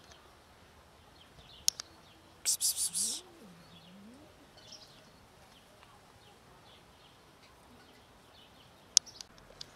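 Faint bird chirps over quiet outdoor background, with a short run of rapid, loud rustling noise pulses about two and a half seconds in and sharp clicks twice.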